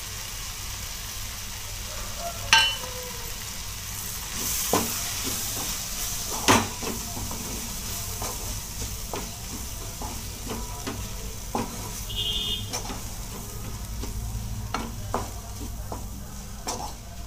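Onion, tomato and ground-spice masala sizzling steadily in a nonstick pan while a wooden spatula stirs it, knocking and scraping against the pan many times.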